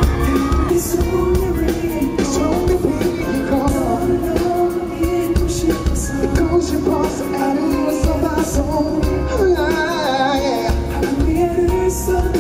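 Live pop music from a concert stage: a band with bass guitar and drums keeping a steady beat, and a man singing into a microphone over it.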